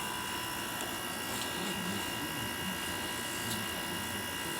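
A steady buzzing hum with several high, unchanging tones over a faint even hiss, with no distinct events.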